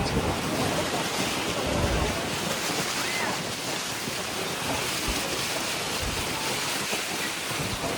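Steady roar of Niagara Falls' falling water, with wind buffeting the microphone; the low wind rumble is heaviest for the first two seconds or so.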